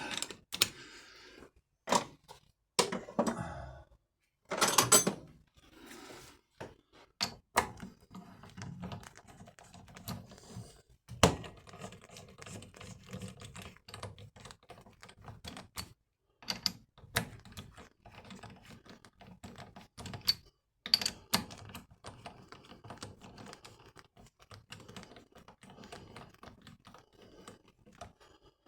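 Hand tools clicking and knocking on metal in an irregular run of sharp taps, with a few louder knocks, as a seized, corroded fork damper bolt is worked loose.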